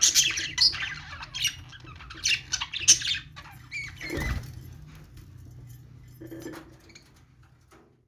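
A courting pair of budgerigars chattering in rapid chirps for about three seconds, then a brief flutter of wings just after four seconds in as one mounts the other; fainter sounds then die away.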